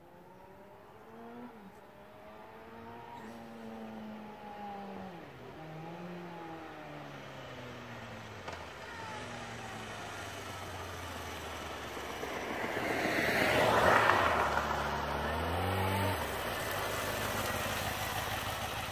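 2006 Kawasaki ZX-6R's inline-four running through a stock exhaust with one baffle removed. It accelerates through the gears as it approaches, the pitch climbing and dropping back at each shift, and gets louder up to a peak about three-quarters of the way through. Then the revs fall away and it settles to an idle near the end.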